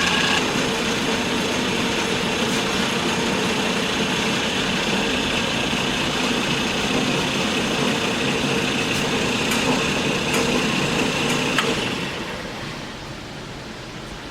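Kalamazoo 13AW horizontal metal-cutting band saw running, a steady motor and blade whine with a few light clicks. It quietens about twelve seconds in as the upper whine falls away.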